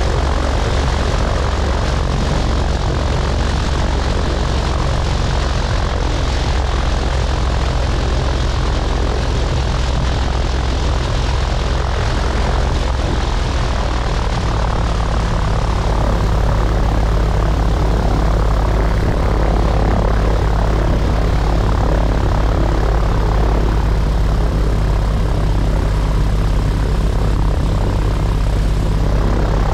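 Piper Pawnee tow plane's piston engine and propeller running steadily at low power while taxiing after landing; the engine note shifts slightly about halfway through.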